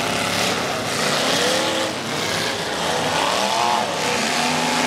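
Figure-8 race cars' engines running and revving on a dirt track, several at once, with pitch rising and falling as the cars accelerate out of corners.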